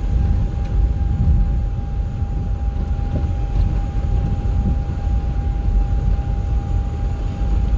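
Steady low rumble of a moving vehicle, with road and tyre noise, and a faint, steady, high-pitched whine over it.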